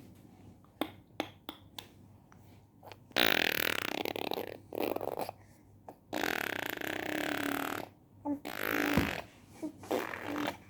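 A small child imitating a car engine with the mouth, blowing buzzing lip trills ("brrrm") in four bursts, the longest about a second and a half, after a few faint clicks.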